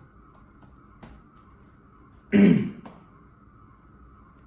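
A person clears their throat once, about two seconds in, over faint steady background noise in the headset microphone.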